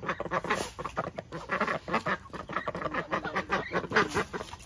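White domestic ducks quacking, a quick run of short, repeated calls.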